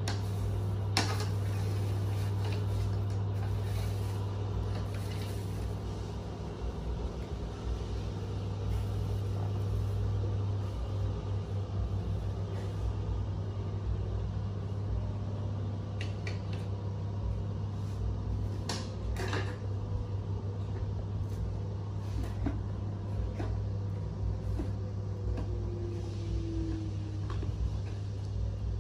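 A steady low hum, like a machine running, with a few faint clicks over it.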